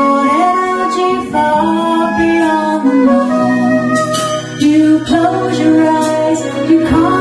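Live band music: a female lead vocal sings long held notes over sustained chords from the band.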